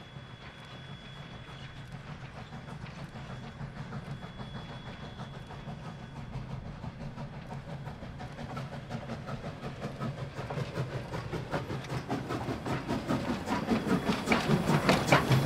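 Narrow-gauge K-36 steam locomotive No. 488, a 2-8-2, approaching and drawing alongside with its train. A low rumble with steam hiss grows steadily louder, and a fast, regular clanking of rods and wheels takes over in the last few seconds as it comes close.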